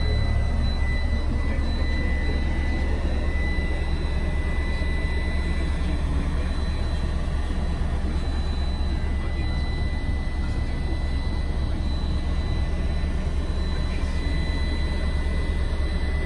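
Scania coach's diesel engine idling steadily, a constant low drone heard from inside the coach, with a thin steady high-pitched whine over it.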